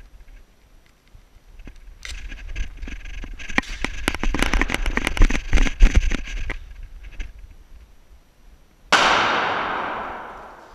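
Airsoft gunfire: rapid clicks and cracks in bursts for several seconds. About nine seconds in comes a single loud bang that echoes off the tiled walls and dies away over about two seconds.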